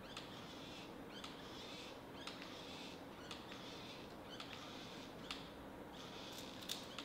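Hand grease gun being pumped into a front A-arm zerk fitting, a faint short squeak with each stroke about once a second. The fitting takes many pumps before grease appears, which the mechanic takes as a sign that the plastic bushings had never been greased.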